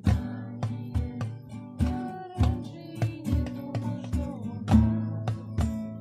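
Acoustic guitar strummed in a steady rhythm, about two strokes a second, the chords ringing on between strokes.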